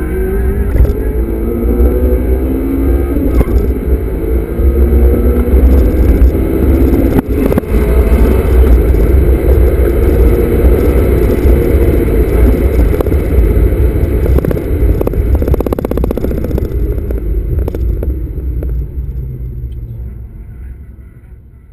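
Honda Civic Type R FD2's 2.0-litre four-cylinder engine pulling up through the revs under acceleration, heard from inside the cabin over a heavy low rumble of road and wind noise. The sound fades out over the last few seconds.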